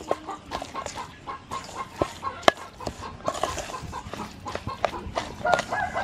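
Chickens clucking repeatedly, with sharp clicks and slaps from a hand mixing minced pork stuffing in a metal bowl.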